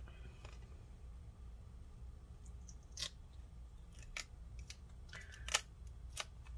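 Scattered faint scrapes and clicks of old battery adhesive being scraped and peeled off the inside of a MacBook Pro's aluminium case, a few short strokes over several seconds, with a low steady hum underneath.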